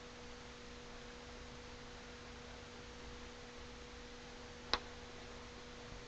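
Quiet room tone: a faint steady electrical hum at two pitches over a light hiss, with one short sharp click about three-quarters of the way through.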